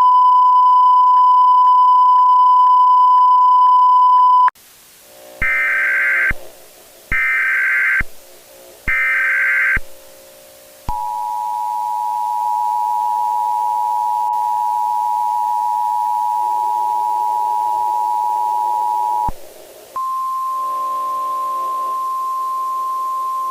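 Emergency Alert System tones: a steady electronic beep for about four seconds, then three one-second bursts of screechy digital SAME header data, then the EAS attention signal held for about eight seconds. After a short break, a single steady tone begins near the end, over a faint low drone.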